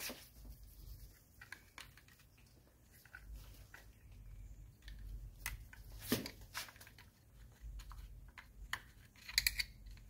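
Faint, scattered clicks and scrapes of a hand tool and the plastic mast cable being worked against the metal housing of a Hirschmann power antenna, as the cable is fed through a tiny hole. A sharper click comes about six seconds in, and a quick run of clicks near the end.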